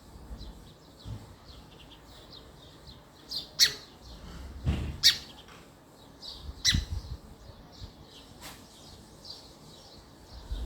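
Male house sparrow chirping: a steady string of faint, quick chirps, broken by a few loud, sharp chirps about three and a half, five and nearly seven seconds in.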